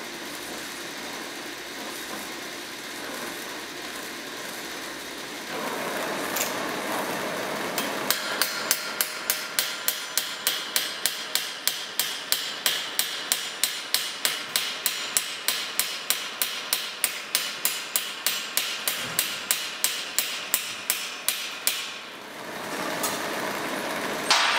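Gas torch hissing as it heats a steel rivet. Then a hammer strikes it rapidly and evenly, about three blows a second for some fourteen seconds, peening the hot rivet to set a spatula blade to its forged handle.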